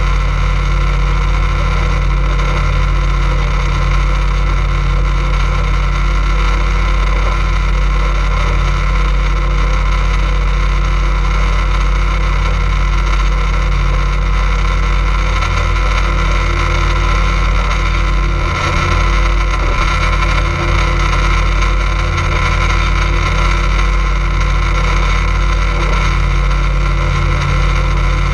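Boat motor running at a steady speed, a constant drone with a heavy low rumble.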